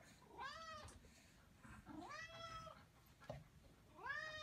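A kitten meowing three times, each meow rising then falling in pitch, the last near the end.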